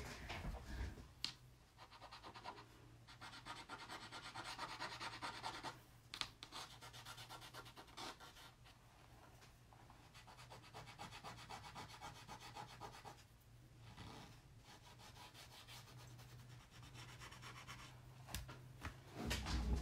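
Faint rubbing of a damp wipe against a chalkboard's surface, cleaning stray chalk paste off the board in several spells of quick short strokes, with a few light taps between them.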